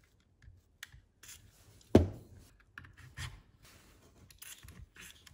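Handling noise from a Fiat Grande Punto's removed door lock actuator: hard plastic rubbing and small clicks as it is gripped and moved, with one sharp knock about two seconds in.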